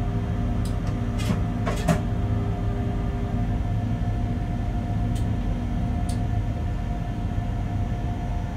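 Bombardier Traxx BR186 electric locomotive rolling slowly while shunting, heard from the cab: a steady low running rumble with a faint steady hum. A few sharp clicks and squeaks come between one and two seconds in, and again around five and six seconds.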